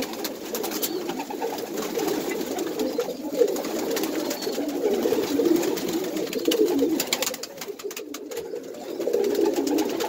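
A loft full of Birmingham Roller pigeons cooing together, a continuous murmur of overlapping coos. It is sprinkled with light clicks and eases off briefly about seven seconds in.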